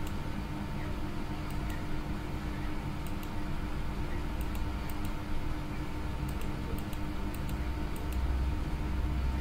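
Faint clicks from a computer mouse, a few at a time and often in quick pairs, over a steady low hum.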